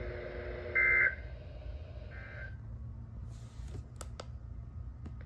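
NOAA Weather Radio EAS end-of-message data bursts: two short buzzy SAME tone bursts about a second apart over radio static, the second fainter. The broadcast carrier then drops out, leaving a few sharp clicks.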